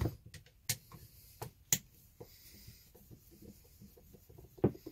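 Faint, scattered clicks and light scrapes from a screwdriver working the housing screws of a Milwaukee M12 FUEL cordless ratchet during teardown, with a few sharper ticks as the tool and its plastic housing are handled on the bench.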